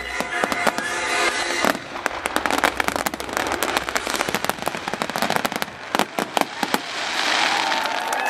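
Fireworks finale: a dense run of bangs and crackling from aerial shells bursting, over the show's music in the first second or so. The crowd starts cheering near the end.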